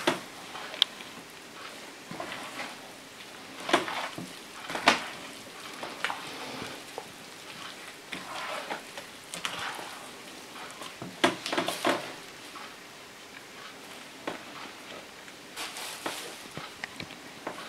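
Hands mixing and kneading sticky yeast dough with flour in a large enamel bowl: irregular wet squelching and slapping, with a few sharper knocks.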